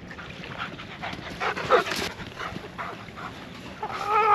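German shepherd panting as it runs, with a short whine about a second and a half in and a louder, wavering whine near the end.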